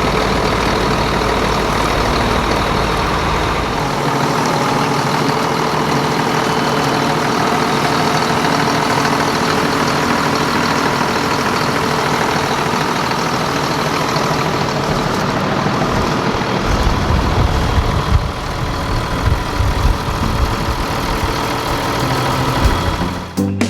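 1996 John Deere 7700 tractor's six-cylinder diesel engine running steadily at idle; its low rumble turns uneven about two-thirds of the way through.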